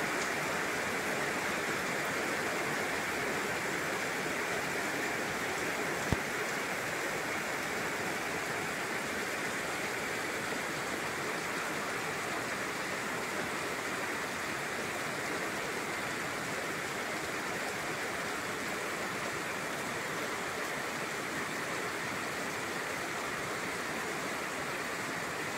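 Heavy rain pouring down steadily on a street, with water running off the pavement, an even hiss. A single brief knock about six seconds in.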